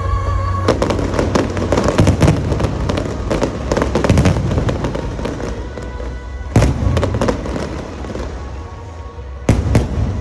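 Aerial fireworks shells bursting and crackling over background music: a dense run of bangs and crackle starts about a second in, then a single sharp bang comes past the middle, and two more bangs sound close together near the end.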